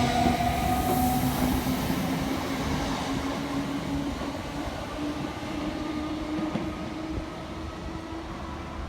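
Train running through the station and moving away, a steady hum of several tones over a rumble that slowly grows quieter.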